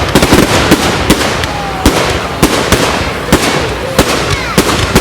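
Fireworks going off: a rapid, irregular crackle of sharp bangs, several a second, over a continuous rushing hiss.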